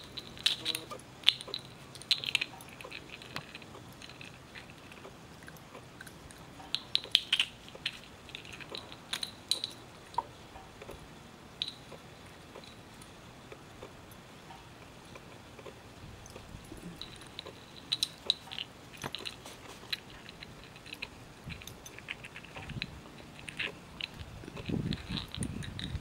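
A puppy chewing and mouthing a small ball, with scattered clusters of sharp clicks and crunches and quieter gaps between them. There is a louder low rumble near the end.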